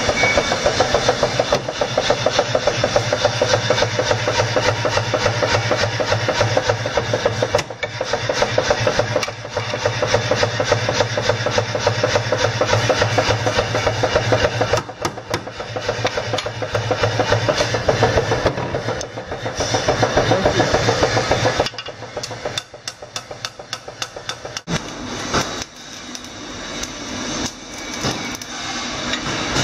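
Power hammer pounding a red-hot parang blade in fast, even blows, several a second, over the steady hum of its motor. About twenty-two seconds in the hammering stops, leaving quieter, irregular knocks.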